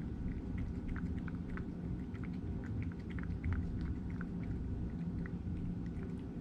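A cat chewing its food, small irregular crunches several times a second, over a steady low hum.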